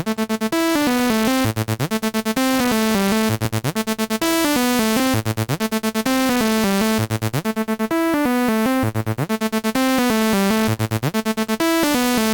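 Electronic synth loop playing brightly, with a short melodic figure and a fast chopped stutter that returns about every two seconds. It is driven through an analog-style EQ plugin with the input pushed up and the output pulled down, which colours the sound noticeably.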